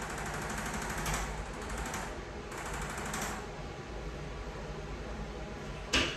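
Electric percussion massager hammering rapidly and steadily on the patient's back, louder at moments, with a sharp knock about six seconds in.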